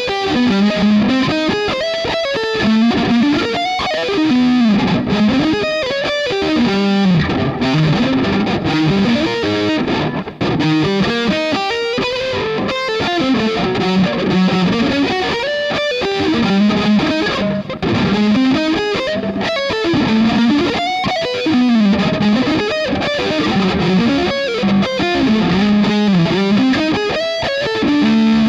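Electric guitar through distortion playing fast, unbroken runs: sweep-picked arpeggios and scale runs that climb and fall again in repeating shapes.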